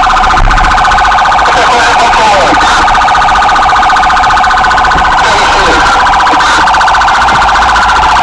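Electronic emergency-vehicle siren sounding continuously, a steady, very rapidly pulsing tone, with shouting voices faintly underneath.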